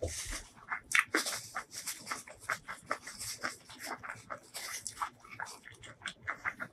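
Close-miked chewing: many wet mouth clicks and smacks of a mouthful of rice and spicy shrimp salad being chewed. A paper tissue rustles against the lips partway through.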